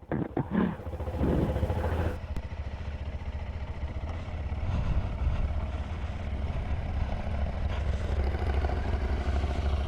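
KTM adventure motorcycle engine running steadily at low revs, a low, fast pulsing.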